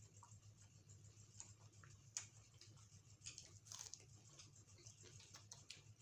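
Faint eating sounds: scattered clicks and crackles of chewing and mouth noises, sharpest about two seconds in and in a short cluster past the middle, over a low steady hum.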